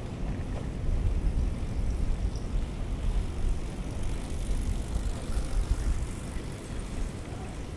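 Wind buffeting the microphone of a moving bicycle-mounted camera, a low, gusty rumble that swells about a second in and eases near the end.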